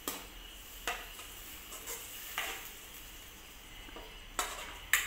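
Metal spoon stirring watery dal in a kadhai, scraping and knocking against the pan about six times at uneven intervals. The loudest knock comes near the end.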